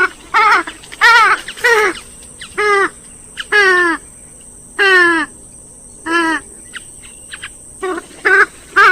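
A rail, of the swamphen or moorhen kind, giving about ten short calls at uneven intervals, each one falling in pitch. A faint steady hum sits under the calls.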